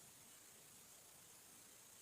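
Near silence: faint, steady hiss.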